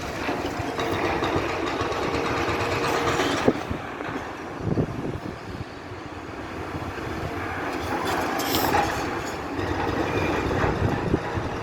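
Demolition excavator running, with crunching, scraping and sharp knocks of metal and masonry as its jaws tear out a building's window and the metal railings guarding it.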